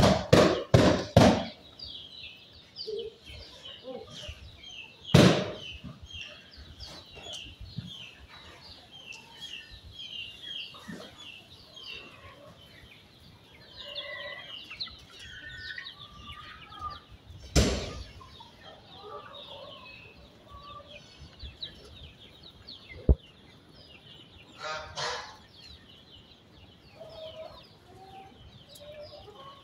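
A flock of chickens clucking, with many short, high chirps throughout. A quick run of loud knocks comes in the first second or so, and two single loud knocks come later, at about 5 and 18 seconds.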